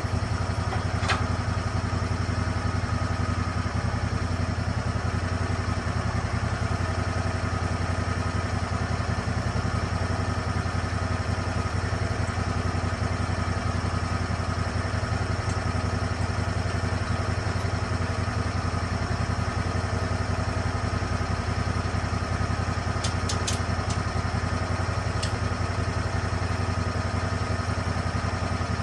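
Engine of a Lucas Mill 10-30 swing blade sawmill running steadily without a change in pace, with a few faint clicks about a second in and again near the end.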